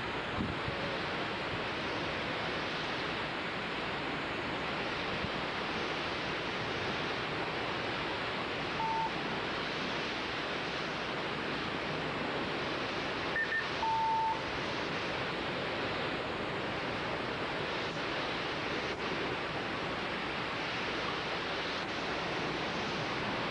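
Hurricane Ivan's winds, about 75 mph with higher gusts, rushing steadily. Short electronic beeps sound three times about midway; they are the loudest moments.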